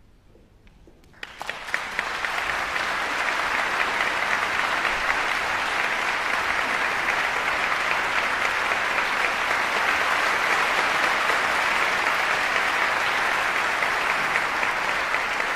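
Concert audience applauding, a dense steady clatter of clapping that starts about a second in.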